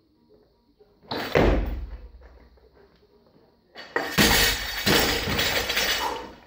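A barbell snatch: about a second in, a sudden heavy thud and clank as the lifter's feet stamp down and the bar is caught overhead. From about four seconds in, the loaded barbell is dropped to the floor, its rubber bumper plates hitting, bouncing and rattling for about two seconds.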